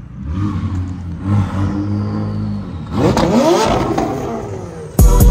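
Car engine running, then revving up and back down about three seconds in. Loud music with a beat cuts in near the end.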